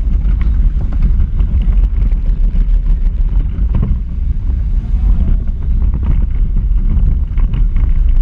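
Onboard sound of a small electric Power Racing Series car driving on asphalt: a loud, steady low rumble and rattle of the wheels and chassis shaking the car-mounted camera.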